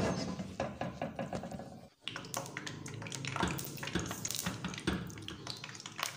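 Hot cooking oil crackling and sizzling in a kadhai, heated for deep-frying, with a brief break in the sound about two seconds in.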